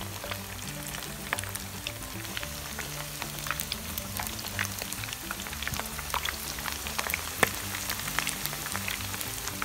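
Batter-coated prawns deep-frying in a wok of hot oil: a steady sizzle scattered with many sharp crackles and pops.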